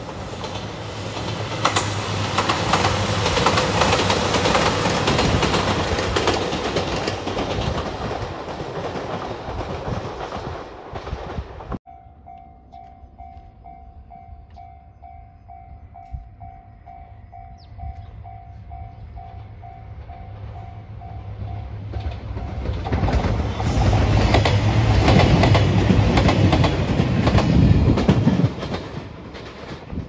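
A red Anpanman-livery JR 2700-series diesel express train passing close by, its wheels clattering over the rail joints. After a sudden cut, a level-crossing warning bell rings about twice a second for about ten seconds, then a train runs past loudly again and fades away.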